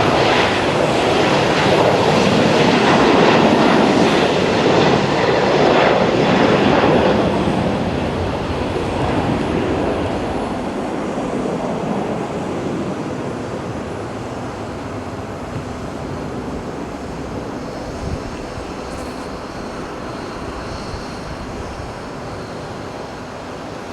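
Jet airliner's engines at takeoff power as it departs: a loud, even rush of engine noise for the first several seconds, then fading steadily as the aircraft climbs away.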